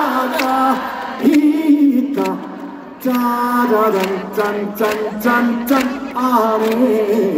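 A male trot singer singing a cappella through a microphone and PA, with held, sliding notes and no band playing, and a few sharp handclaps.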